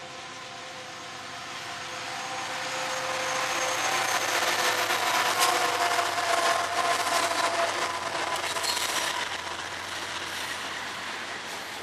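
Freight train passing close by: the three lead diesel-electric locomotives (CSX SD70AC, KCS AC4400CW, BNSF C44-9W) build to their loudest about five seconds in as they go by. Then tank cars roll past with steady wheel-on-rail noise and a few sharp wheel clicks.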